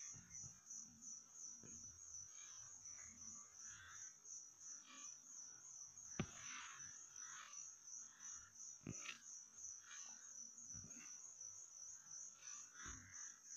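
Near silence with faint insect chirping, a high pulsing tone repeating a few times a second, and two soft clicks in the middle.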